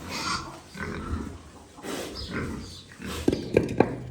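Pigs in a pen grunting and snuffling in short bursts. A few sharp knocks come in quick succession near the end.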